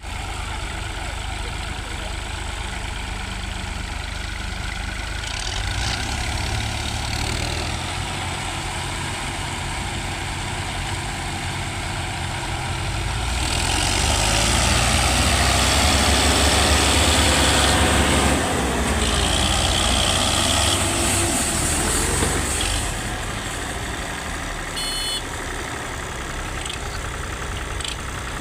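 Tractor diesel engine running steadily. About halfway through it gets louder for around nine seconds, with a rushing hiss over the engine, then settles back.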